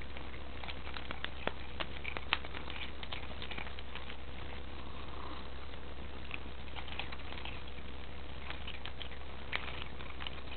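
A cat chewing on plastic: irregular small crunches and clicks of its teeth on the plastic, coming in loose clusters.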